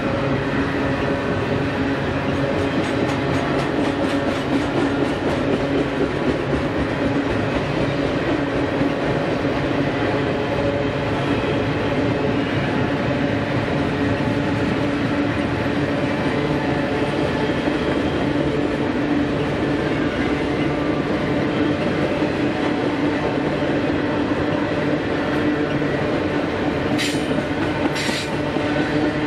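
Container cars of a double-stack intermodal freight train rolling past on a curve: a continuous steady rumble of wheels on rail with a held, steady squealing tone. Two short high-pitched hisses come near the end.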